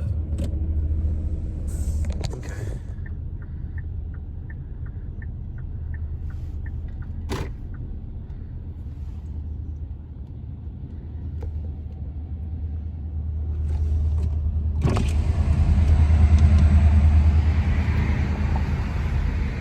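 Inside a moving car: a steady low engine and road rumble. Light even ticking about twice a second runs from about three to seven seconds in, with a single sharp click just after it. About fifteen seconds in, a wider rushing noise swells and everything grows louder.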